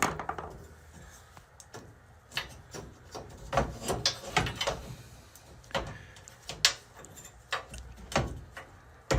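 Steel box spring frame parts being handled and fitted together: a series of irregular metal clicks and knocks.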